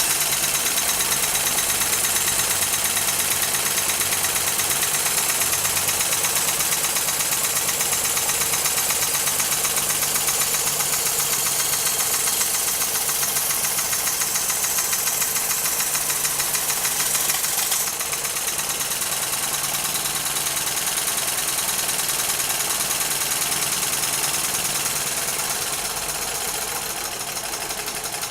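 PM Research #1 model steam mill engine driving a model sawmill under load: a steady, fast mechanical clatter with a strong high hiss. The level drops suddenly about 18 seconds in and eases further near the end.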